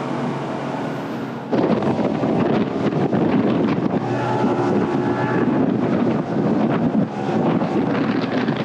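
Outboard-powered boat running at speed over open water, with wind buffeting the microphone. About a second and a half in, the wind noise jumps suddenly louder and rougher and stays gusty.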